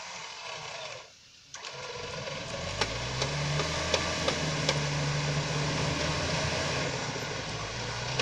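Willys jeep engine coming up in revs about two and a half seconds in and then held steady under load as the jeep is driven and winched out of a muddy rut, with a few sharp clicks over the top.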